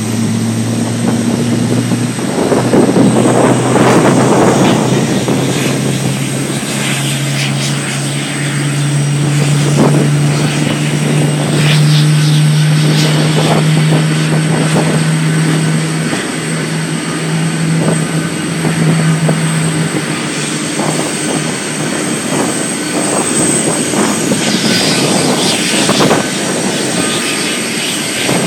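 Aircraft engines running: a continuous loud rush with a steady low hum that shifts up slightly partway through and drops out near the end.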